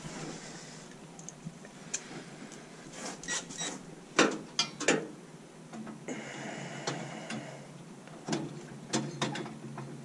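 Irregular metallic clicks and knocks from hand work inside a gas boiler's burner compartment, with tools and sheet-metal parts handled among the burner tubes.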